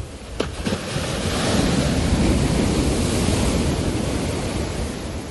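Storm surf whipped up by a hurricane, breaking on the shore: a rush of crashing water swells from about a second in and slowly eases off. Wind buffets the microphone underneath.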